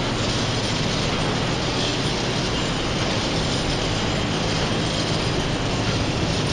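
A commercial 10x8 straight vertical-lift garage door travels under its electric opener, making a steady mechanical running noise that holds an even level throughout.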